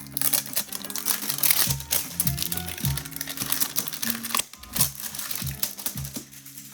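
Crinkling of a foil Pokémon card booster pack wrapper being torn open and handled, over background music; the crinkling dies down about four and a half seconds in.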